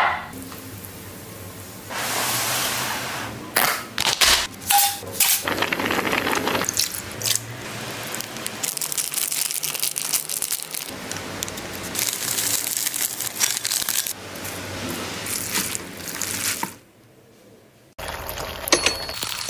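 Close-up food-preparation sounds: plastic seasoning packets crinkling and tearing, with sauces and pickles squeezed and poured wetly onto a bowl of rice noodles. The sounds come in short noisy spells with sharp crackles, and drop to near silence for about a second near the end.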